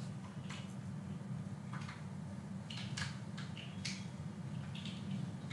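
Faint, scattered taps and scratches of a round steel sieve being shaken and knocked as flour and cocoa are sifted through it into a glass bowl, over a steady low hum.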